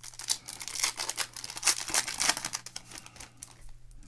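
Foil wrapper of a football card pack being torn open and crinkled by hand, a dense crackling that is loudest about two seconds in and dies down near the end.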